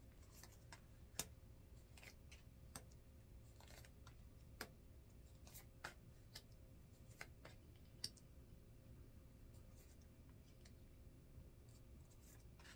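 Tarot cards being shuffled and handled by hand: faint, irregular soft clicks and flicks of card stock over a low steady hum.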